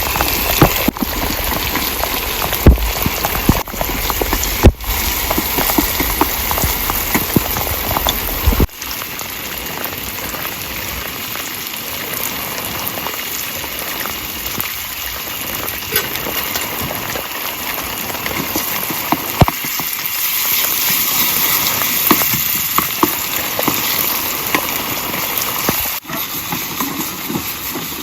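Heavy rain falling steadily, with sharp drops smacking close by during the first part. About nine seconds in the sound switches abruptly to a steadier hiss of rain.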